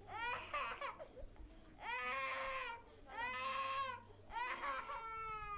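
A toddler crying, four loud wailing cries of about a second each with short catches of breath between, the last one drawn out and falling in pitch.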